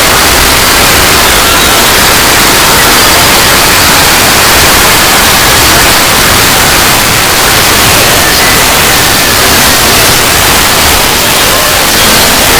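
Loud, harsh static-like noise held at a steady level throughout, with faint pitched tones buried in the hiss: a heavily distorted fan-made logo sound effect.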